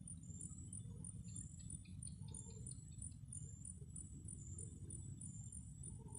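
Night-time forest insects calling: a steady, evenly repeating series of high-pitched chirps, with a second insect's run of quicker, lower ticks from about a second in to about three seconds in, over a low steady rumble.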